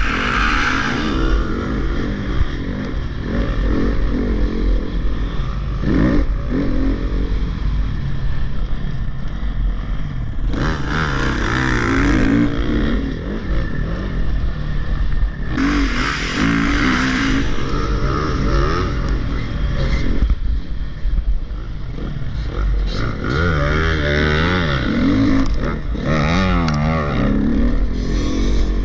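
Dirt bike engine heard from onboard the bike, revving up and down over and over as it rides a motocross track, its pitch rising and falling with the throttle.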